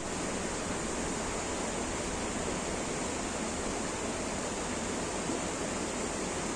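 Shallow river running over stones and rocks: a steady, even rush of water.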